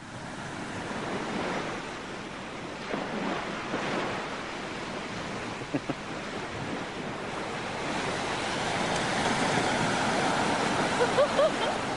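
Sea surf breaking on a sandy beach: a steady rush of waves that grows louder toward the end.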